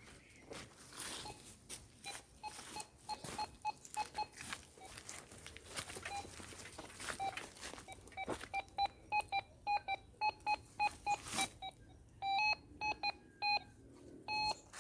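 Gold Monster metal detector beeping in short tones of one pitch as its coil is swept over trash-strewn ground, sparse at first and coming quickly, several a second, from about halfway on. Crackling rustle of brush throughout.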